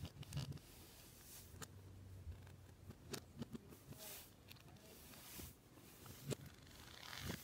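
Faint handling of plastic Lego pieces: light rustling with several scattered sharp clicks as small parts are picked up and pressed onto a model car.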